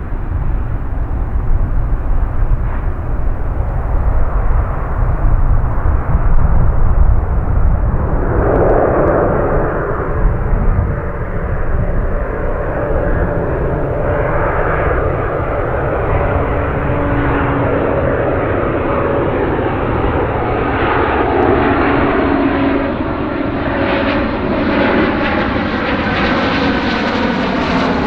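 Jet airliner on approach to land: a loud low roar of its engines, with whining engine tones coming in about eight seconds in and the sound growing brighter as the aircraft draws nearer.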